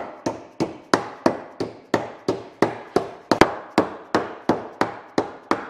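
Dead blow hammer striking a sheet-metal rib flange over a wooden form block held in a bench vise, in steady blows about three a second. The flange is being knocked all the way down flat over the form, a stage in hand-forming an airplane rib.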